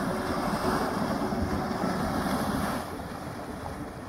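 Boiling mud pot churning, a steady rushing sound mixed with wind on the microphone. It drops quieter about three seconds in.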